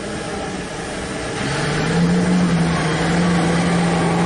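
Large loaded mining haul truck driving past, its diesel engine running with a steady low drone that grows louder about a second and a half in.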